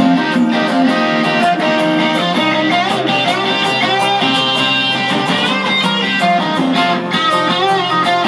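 Guitars playing the instrumental intro to a rock and roll song: strummed chords under a lead line with bending high notes.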